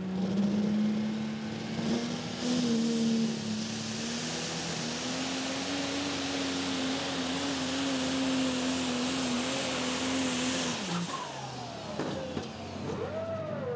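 Turbocharged diesel pulling truck at full throttle under load, dragging the pulling sled. The engine note holds steady and climbs a little about four seconds in, with a high turbo whine over it. It drops off sharply about eleven seconds in as the driver lets off at the end of the pull.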